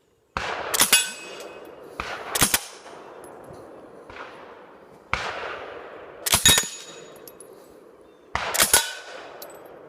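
Suppressed M3 grease gun firing several short full-auto bursts, a couple of seconds apart, each followed by steel targets clanging and ringing from the hits.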